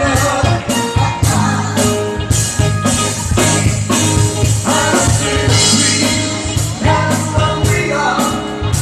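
Live band playing a rock-style cover song: a drum kit keeping a steady beat under bass and guitar, with a sung vocal line.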